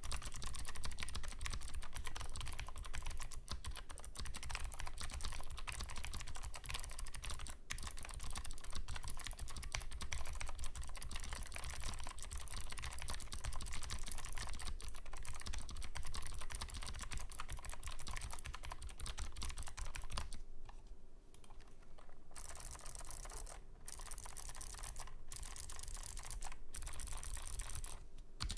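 Fast, continuous typing on a 60% custom keyboard with vintage Hi-Tek Series 725 black clicky ("Space Invaders") switches, PBT dye-sub keycaps and an FR4 plate: a dense stream of sharp clicks, broken by a few short pauses in the last third.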